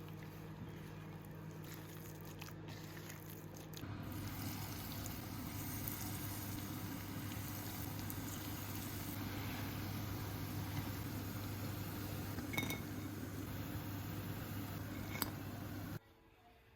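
Dhal pakoras sizzling as they deep-fry in hot oil, over a steady low hum. The sizzle grows louder about four seconds in, and two light clinks come near the end.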